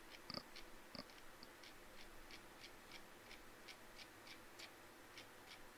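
Faint, regular clicking of a computer mouse's scroll wheel being turned, about three ticks a second, over near silence.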